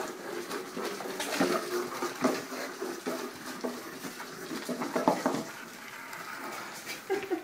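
Plastic bag crinkling and rustling, with a box scraping and knocking on a wooden floor as a ferret drags the bagged box along. There are many small irregular crackles and clicks throughout.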